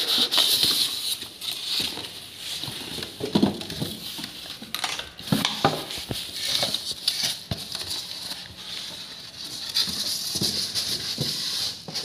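Plastic wrapping crinkling and rustling as hands unwrap and handle a boxed electric motor, with a few dull knocks around the middle.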